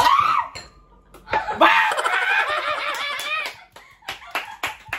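Shrill, cackling laughter and squeals from a few people: a short cry at the start, then a long burst of high, rapid laughter from about a second and a half in.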